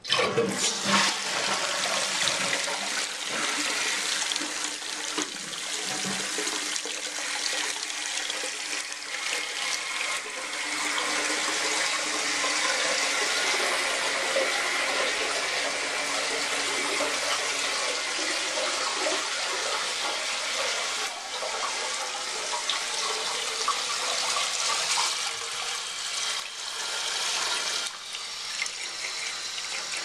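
2000 Crane Flormont toilet flushing: water rushes out suddenly at the start, loudest in the first couple of seconds, then settles into a steady hiss and splash as the float-ball ballcock refills the tank.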